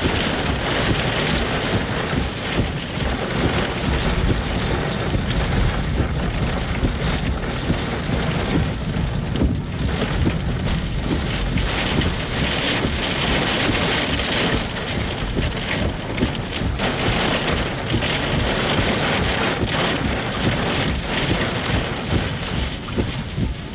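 Heavy thunderstorm rain driven by strong wind: a steady, loud rushing hiss with low, uneven buffeting underneath.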